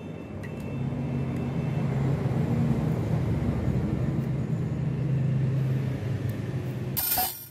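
A motor vehicle engine running with a steady low hum that grows louder after about a second and holds. A brief loud crackle comes near the end, and then the hum cuts off abruptly.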